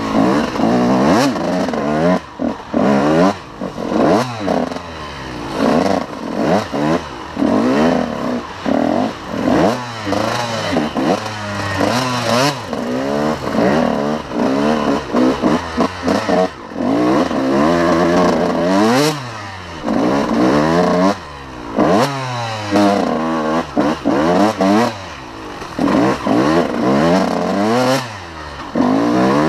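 A 2002 Honda CR125's 125cc two-stroke single-cylinder engine revving up and down over and over as the throttle is opened and shut every second or two, with frequent knocks.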